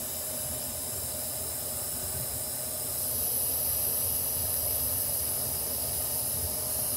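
Steady hiss of a DC TIG welding arc from an Everlast PowerTIG 210EXT set to about 110 amps, with argon shielding gas, welding steel. It gets slightly louder about three seconds in.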